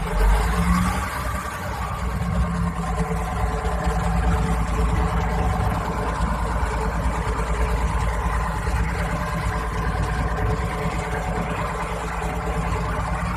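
Boat engine running steadily, a low drone with a constant hum over a rushing noise.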